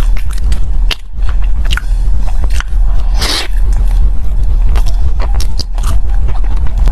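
Close-miked chewing and biting of soft white bread filled with purple sticky rice: many short wet mouth clicks and smacks, with one longer, louder bite about three seconds in. A low steady hum runs underneath.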